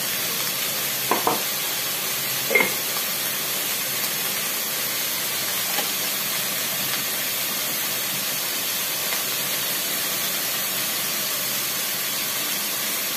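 Shredded cabbage and beetroot frying in a kadai, a steady sizzling hiss, with a couple of short clicks in the first few seconds.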